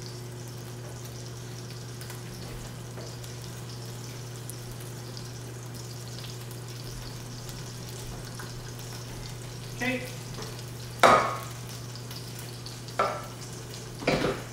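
Salmon fillets sizzling steadily in a pan on a gas range, over a low steady hum. From about ten seconds in come four sharp knocks and clatters, the second the loudest.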